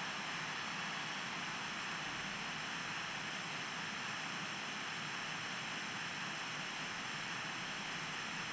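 Steady hiss of analogue TV static, an even white-noise rush with no change in level.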